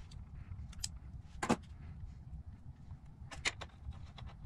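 Wire being worked with hand tools: a low handling rustle with a few sharp clicks, one loud click about a second and a half in and two close together near three and a half seconds, from a self-adjusting wire stripper taking insulation off the wire and the wire being fitted into a terminal.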